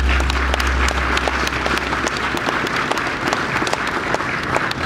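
Audience applauding, with a low hum from the sound system that cuts out about halfway through.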